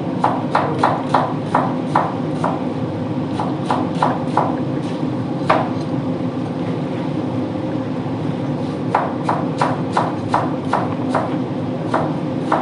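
Kitchen utensil taps: runs of short sharp taps, about three or four a second, come in several bursts over a steady hum of kitchen equipment.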